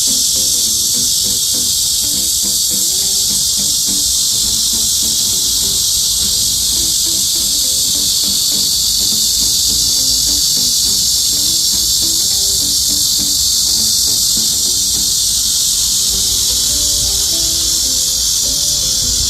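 Cicadas calling in a loud, steady chorus: a continuous high, hissing buzz that never breaks.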